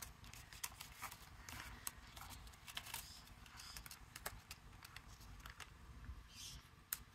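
Faint rustling of die-cut cardstock embellishments being handled by hand, with many small, irregular paper ticks and clicks as pieces are picked up and shifted.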